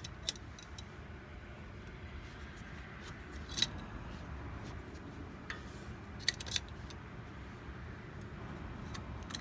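A few sharp metallic clicks and clinks from a C-clamp being turned to force a brake caliper's two pistons back into their bores, over a low steady hum.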